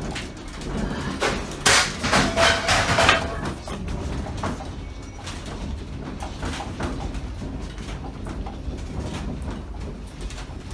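Room and household objects rattling and creaking as an earthquake shakes the building. A burst of loud knocks and clatter comes about two seconds in, then lighter irregular rattling over a low rumble.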